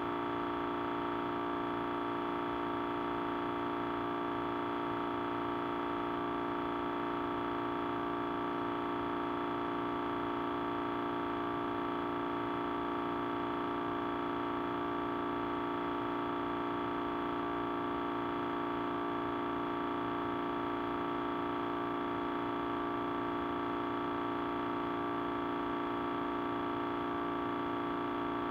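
Audio feedback ringing as a chord of several steady tones, one low and several higher, held at an even level without changing.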